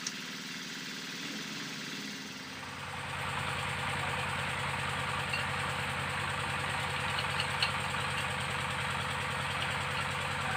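Small stationary diesel engine running steadily at idle, growing louder and deeper about three seconds in, with a few light metallic clicks.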